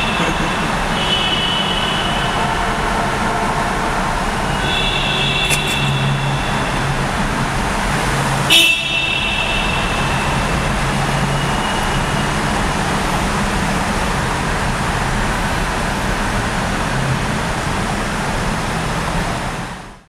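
Car horns tooting in a road tunnel, several short honks from different cars over a steady roar of traffic and tyre noise; the sound fades out near the end.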